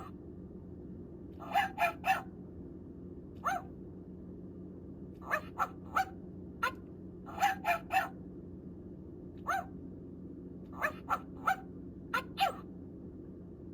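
Barbie Hug 'N Heal Puppy plush toy playing recorded puppy barks from its battery-powered sound unit. The barks are short and sharp and come in quick groups of two or three, with single barks between, repeating every second or two.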